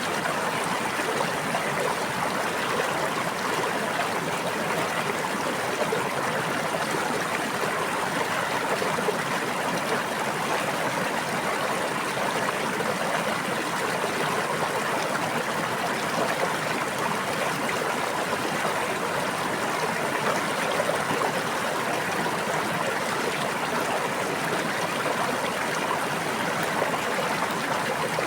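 A brook babbling steadily, running water with no breaks or changes.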